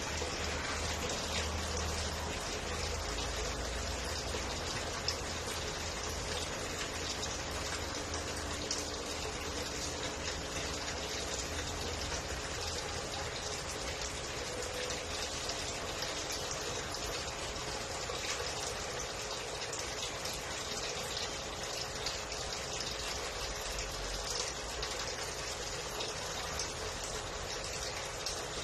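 Aquarium filter running: a steady rush and splash of water returning into the tank, with a faint steady hum.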